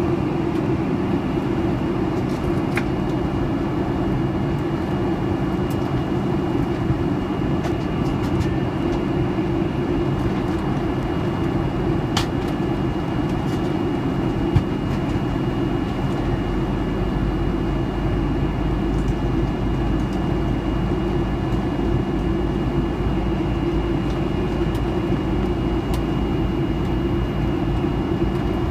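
Steady in-flight cabin noise of a Boeing 737-900ER at altitude, heard from inside the cabin: an even rumble of airflow and CFM56-7B turbofan drone, with a faint steady high whine. A few faint clicks, one a little louder about halfway through.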